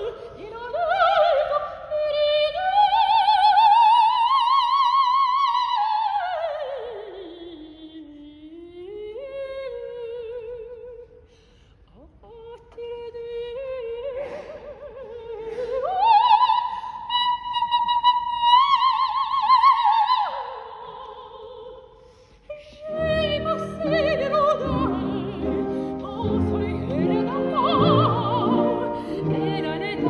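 Operatic soprano singing an unaccompanied passage with wide vibrato: long held high notes, a long descending run, then rising again to held high notes. The orchestra comes back in beneath her about 23 seconds in.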